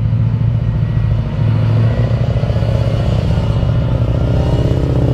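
Engine sound of a tank running steadily, a low, fast, even throb.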